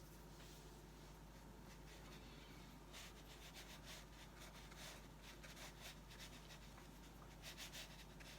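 Faint strokes of a watercolour brush on paper: short scratchy strokes that start about three seconds in and come in a quick cluster near the end, over a low steady hum.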